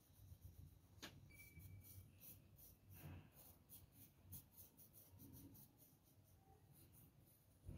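Faint scratching of a graphite pencil on paper in short, quick strokes, several a second, as small pine trees are sketched. A sharp tap about a second in and a low thump near the end.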